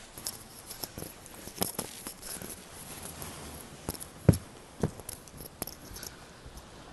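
Shod footsteps crossing sand and then a wooden boardwalk, with rustling handling noise on the microphone. A few sharper knocks come about four to five seconds in, the loudest of them just past four seconds.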